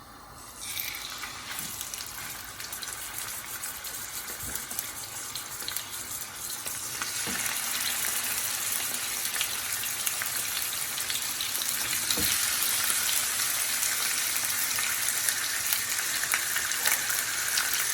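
Chicken thighs sizzling and crackling as they fry in hot oil in a pan. The sizzle starts about half a second in and grows louder about seven seconds in, with a few light knocks.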